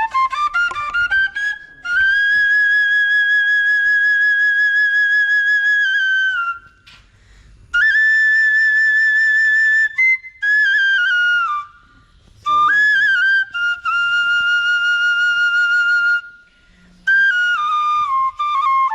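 Solo bamboo flute (bansuri) playing a slow melody in long held notes, with short breaths between phrases, as background music.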